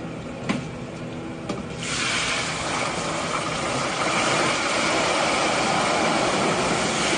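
Ice cubes going into a commercial deep fryer's hot oil: a loud, steady sizzling hiss and crackle starts about two seconds in, as the water flashes to steam and the oil boils violently. Before it there are a few faint clicks of metal handling.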